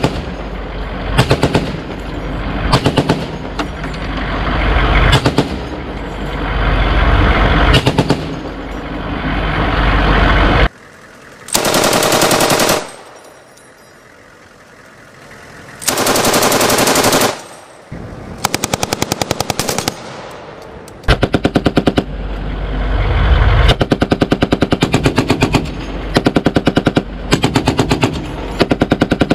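Belt-fed machine guns firing blanks in repeated short bursts of rapid automatic fire, with two longer bursts in the middle, over a low engine rumble.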